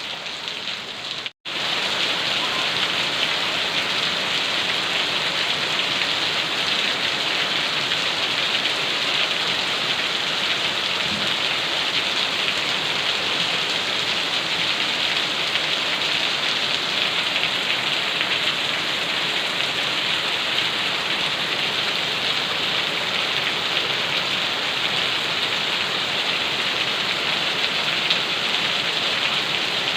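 Steady rain falling, a dense, even hiss. About a second and a half in it cuts out to silence for a split second, then resumes slightly louder, as at a splice in the recording.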